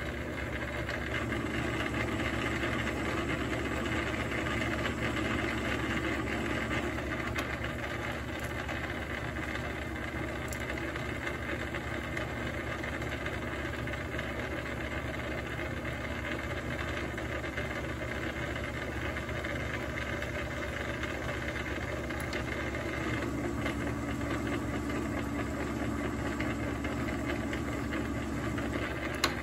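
South Bend lathe running steadily, its motor and drive giving a constant hum and hiss. A faint steady tone joins in for the last several seconds, and a short click comes at the very end.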